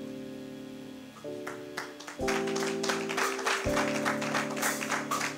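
Keyboard music playing held chords that change every second or so. From about a second and a half in, quick rhythmic hand clapping joins in over it.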